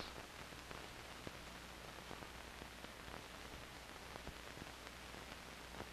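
Faint steady hiss and low hum with a few faint clicks: the noise floor of an old 16mm film soundtrack.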